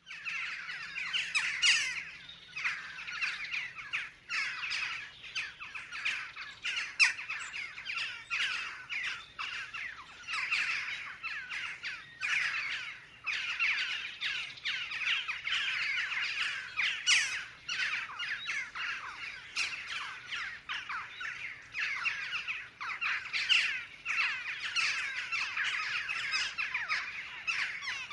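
A flock of western jackdaws calling: many short, overlapping squawking calls in a dense, continuous chatter that swells and ebbs without a break.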